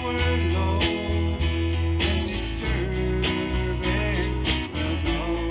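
Live band playing a gospel song: acoustic guitar strummed over steady bass notes and a drum beat.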